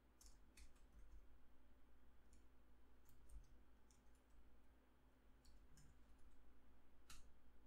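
Faint, scattered clicks of computer keyboard keys being typed, a few at a time, with the sharpest click near the end.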